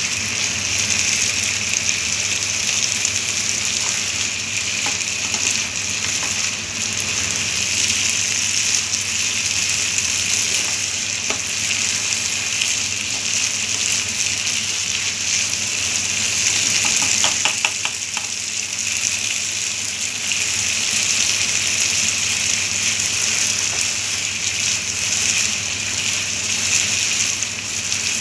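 Chicken pieces and chopped green beans sizzling steadily in a hot nonstick frying pan as they are stirred and turned with a spatula.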